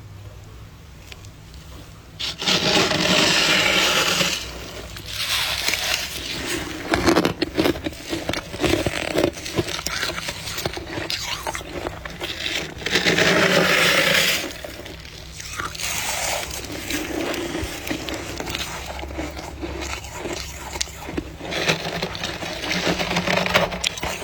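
Freezer frost being scraped and crushed close to the microphone: two long, loud scrapes, one a couple of seconds in and one about halfway, with irregular crackling of the frost between them.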